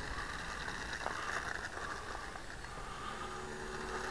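Steady outdoor background noise, with a faint low hum coming in about three seconds in.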